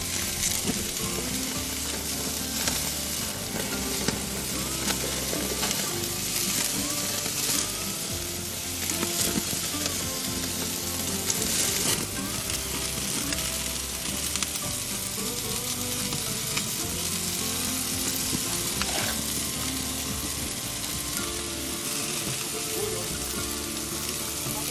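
Meat steaks sizzling on the hot grates of a gas grill: a steady frying hiss with scattered louder pops and crackles.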